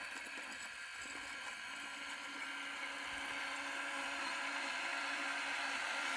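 Small electric motor of a radio-controlled model vehicle whirring steadily, slowly growing louder.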